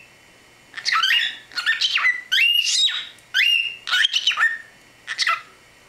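Pet cockatiel chattering and whistling: quick runs of chirpy notes that slide sharply up and down in pitch, in three bursts, the last one short.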